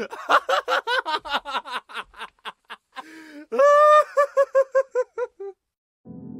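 Cartoon-style laugh sound effect: a quick run of chuckles, about five a second, that slowly fades, then a wheezing breath, a long high squeal, and a fast run of short "heh" notes that dies away. Soft music begins near the end.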